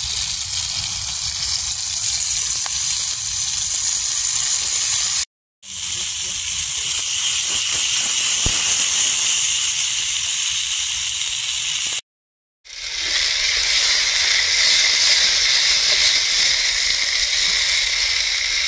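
Boiled chestnuts frying in hot oil in a pan on a gas camping stove: a steady, loud sizzling hiss as the water left on them meets the oil. The sound cuts out twice briefly.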